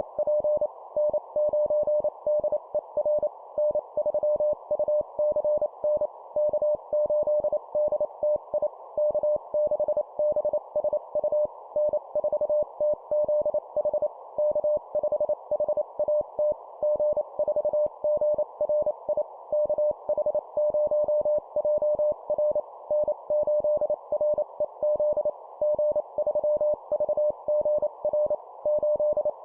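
Morse code (CW) tone sending amateur radio call signs at 25 words per minute: one steady pitch keyed on and off in quick dots and dashes, with short gaps between characters and call signs. A steady band of hiss runs underneath, like a receiver's narrow CW filter.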